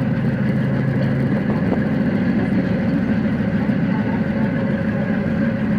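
Excursion motorboat's engine running steadily under way: a low, even drone.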